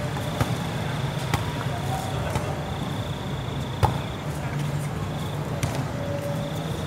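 Volleyball being struck and bouncing on the court: sharp slaps at irregular intervals of about a second, the loudest near the middle, over steady court background noise.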